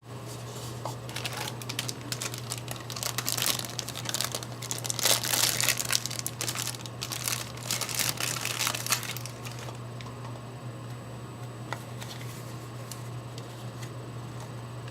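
Packaging crinkling and rustling as it is handled, for about eight seconds, then only a few faint clicks. A steady low hum runs underneath.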